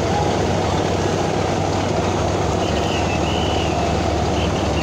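Steady low drone of a river passenger launch's diesel engine running at cruising speed.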